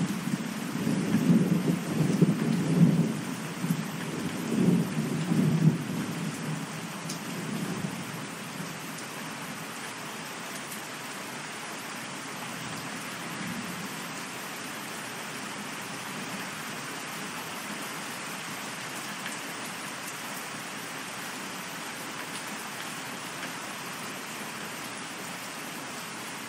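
Steady rain with a roll of thunder that rumbles unevenly through the first several seconds and fades away about eight seconds in, leaving the even hiss of rain.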